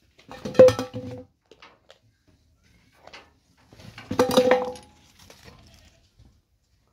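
Metal objects clattering and ringing in two short bursts, about a second in and again about three seconds later.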